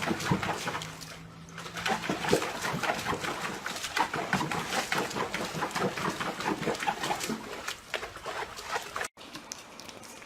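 A dog making a rapid, busy run of short sounds that cuts off suddenly about nine seconds in.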